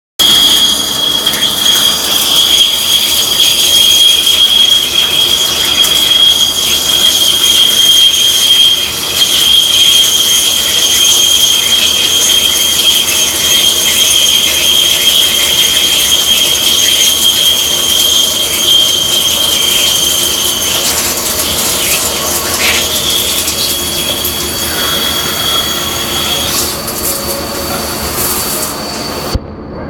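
Indexable carbide-insert drill cutting into a spinning workpiece on a CNC lathe under coolant spray: loud, steady hiss with a high, held whine. The whine stops about two-thirds of the way through, the sound changes, and near the end the noise drops away suddenly.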